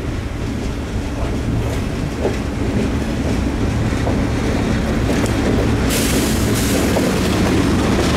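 Pan Am GE Dash 8 (C40-8) diesel locomotives approaching, a steady engine rumble growing louder. About six seconds in, a sudden hiss of steel wheels on rail joins it.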